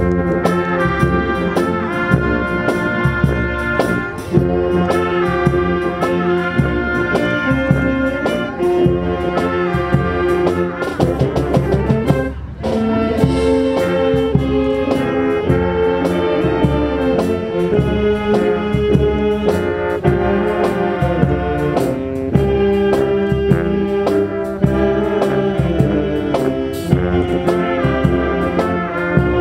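School marching band playing a tune on brass instruments, trumpets and trombones over a steady beat, with a short break about twelve seconds in.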